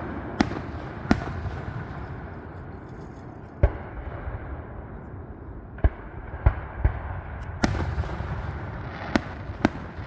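Fireworks going off: about ten sharp bangs at irregular intervals, each with a brief echoing tail, over a continuous rumble.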